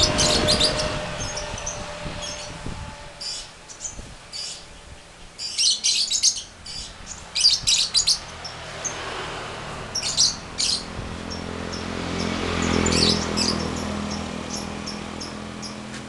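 Caged lovebirds chirping in shrill bursts of rapid high chirps, the bursts a second or a few seconds apart. A low rumble swells and fades a few seconds before the end.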